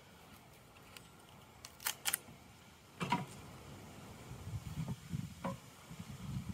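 Sharp clicks and wooden knocks as a screened wooden bee package is handled and lifted off a wooden hive box: two quick clicks about two seconds in, a louder knock a second later, another knock near the end, with a low rustle of handling in the last two seconds.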